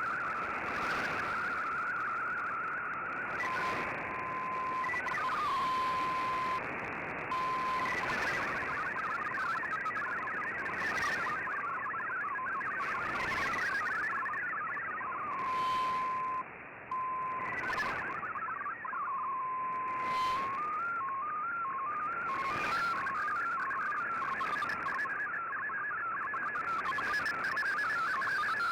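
Shortwave digital-mode data signal from a communications receiver: MFSK tones hopping rapidly in pitch. Steady single tones break in at times, and the tones step up and down like a staircase near the end, over a background of shortwave hiss and brief static crashes.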